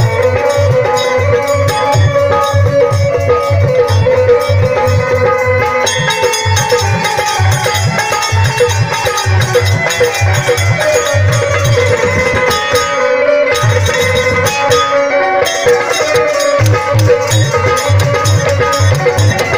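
Instrumental folk music: a dholak barrel drum plays a steady, even rhythm, with small hand cymbals and an electronic keyboard holding a melody. The drum drops out for a few seconds about two-thirds through, then comes back in.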